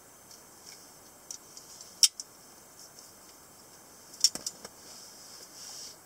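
Metal clicks from a steel AK47 CCCP semiautomatic folding knife as its lock and blade are worked by hand: one sharp click about two seconds in, then a quick run of clicks a little after four seconds, with faint handling rustle near the end.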